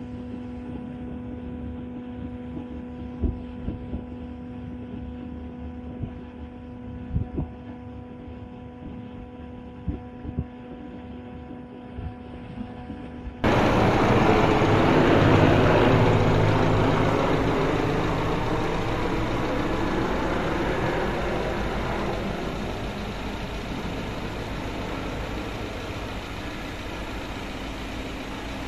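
A steady low hum with a few faint knocks, then, about halfway through, the loud rotor and engine noise of a firefighting helicopter carrying a water bucket. The noise starts suddenly, peaks a couple of seconds later and slowly fades as the helicopter flies away.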